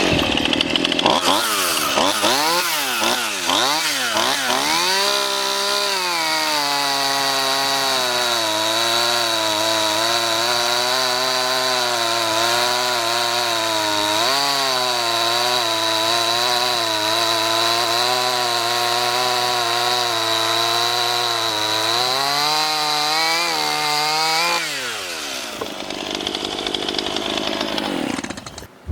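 Stihl MS171 chainsaw's 31.8 cc two-stroke engine revving in a few quick blips, then running at high revs under load for about twenty seconds as the chain cuts through wood. Near the end the revs drop back off.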